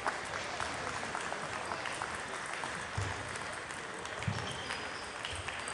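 Table tennis balls clicking off bats and tables from many tables at once in a busy hall, over a murmur of voices, with a few low thuds.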